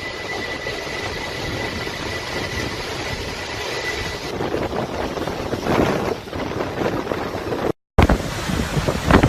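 Storm wind rushing steadily across the microphone. A thin steady high whine sounds over the first few seconds. Near the end the sound breaks off for a moment, then comes back in harder gusts.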